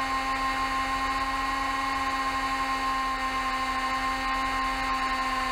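Cessna 172 cockpit noise: the four-cylinder engine and propeller give a steady drone with hiss, holding one pitch and sagging slightly near the end.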